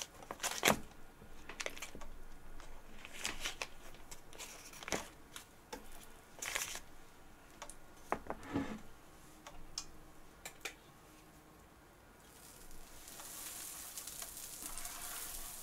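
Scattered clicks and rustles of kitchen handling, then in the last few seconds a steady sizzle builds as butter heats in a frying pan for French toast.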